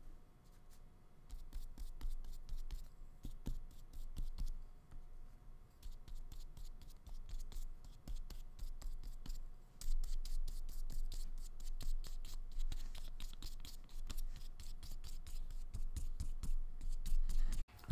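Flat paintbrush loaded with turquoise paint stroking and dabbing across paper in a rapid, irregular series of short scratchy strokes, heavier from about ten seconds in.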